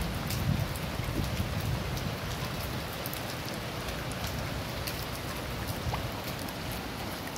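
Rain falling onto shallow floodwater running over a street: a steady hiss with many scattered ticks of single drops hitting the water.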